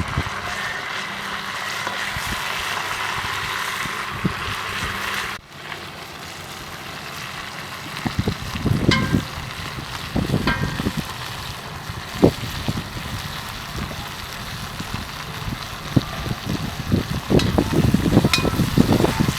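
Beef frying in oil for pilaf, a steady sizzle that drops abruptly to a quieter sizzle about five seconds in. From about eight seconds on, irregular low thumps and rustles join it.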